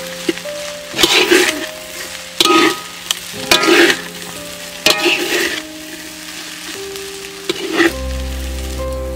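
Metal spatula scraping and tossing fried rice with octopus in a hot pan, about five separate strokes over a sizzle. Background music plays underneath and grows fuller near the end.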